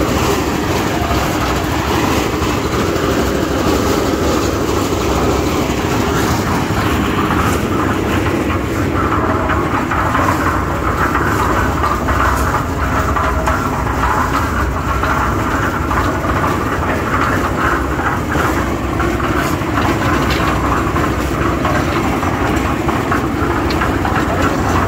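A cement mixer's 7.5 hp Shinmax gasoline engine running steadily and turning the empty drum, with a continuous mechanical rattle.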